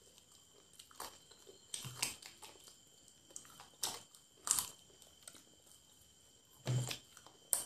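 Close-up biting and chewing of fried chicken legs: a few short, separate crunches and mouth clicks, with a louder burst near the end.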